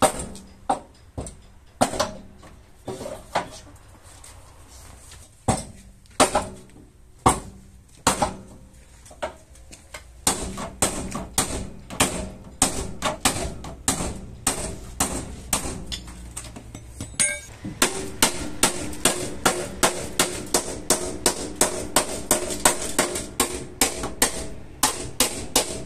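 Hammer blows on the bent steel front chassis member and inner wing of an accident-damaged Peugeot, hammering out the crash damage while a pulling chain holds it. Scattered single blows at first, then from about ten seconds in a steady run of about two to three blows a second, the metal ringing after each strike.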